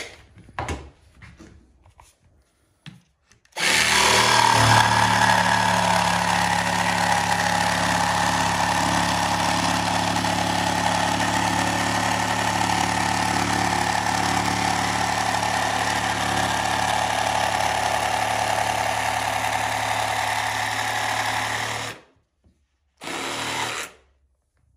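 Makita DJV180Z 18V cordless jigsaw cutting through 20 mm walnut engineered board, running steadily for about eighteen seconds after a few short handling knocks. It stops, then runs once more for about a second near the end.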